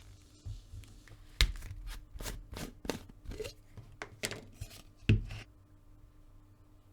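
Hand work with leather and tools on a workbench: an irregular string of scrapes and light taps, with a sharp knock about a second and a half in and another about five seconds in.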